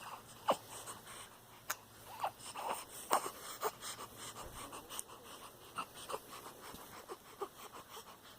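Newborn baby's snuffly breathing and small noises, short and irregular, with a few sharp clicks in between.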